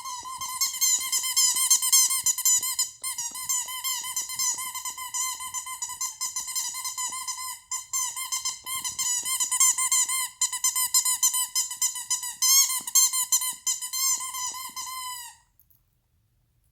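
A shih tzu chewing a squeaky toy, making rapid, continuous squeaking at one steady pitch that pulses several times a second. It stops suddenly about 15 seconds in.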